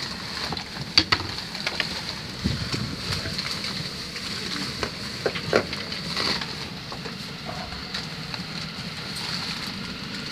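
Background noise inside a train carriage standing at a station platform: a steady hiss with scattered clicks and knocks.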